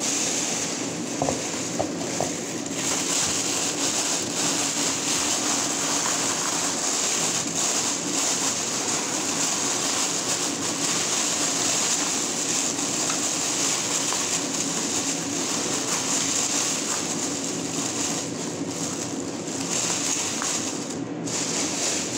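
Clear plastic bags crinkling and rustling as seafood is packed into them by hand, over a steady background hiss and low hum.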